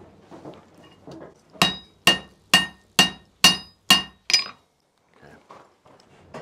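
Seven hand-hammer blows on red-hot steel held in tongs on an anvil, about two a second, each with a short metallic ring.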